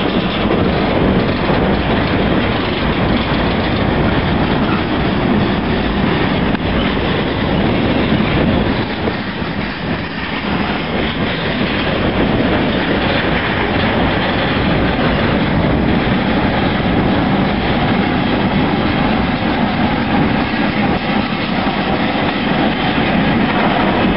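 Union Pacific freight cars rolling past close by, steel wheels on the rails making a steady loud noise that dips briefly about ten seconds in.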